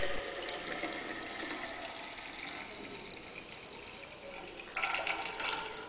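Liquid poured from a bottle through a glass funnel into a narrow glass cell, a steady trickle that grows louder for about a second near the end.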